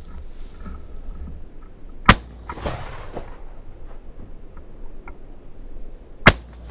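Two shots from a 12-gauge over-and-under shotgun, about four seconds apart.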